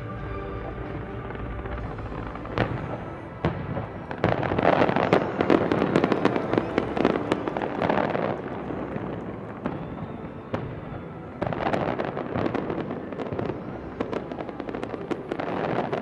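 A large fireworks display: scattered sharp bangs, then two long stretches of dense crackling and popping, about 4 to 8 seconds in and again about 11 to 15 seconds in, with music underneath.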